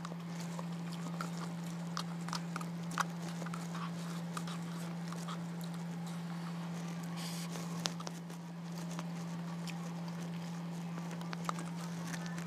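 Close-up eating sounds: chewing and slurping instant noodles and broth straight from a paper cup, with scattered light clicks of the utensil against the cup and a short slurp about seven seconds in.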